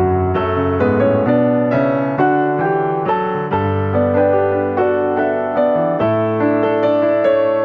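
Background piano music: a gentle piece with evenly struck notes over held bass notes.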